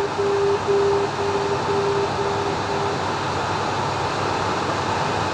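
Marker beacon audio in the cockpit: a low tone keyed in even dashes about two a second, as from the outer marker on the approach, fading out about three seconds in. Under it runs the steady cockpit noise of the Cessna Citation M2 jet.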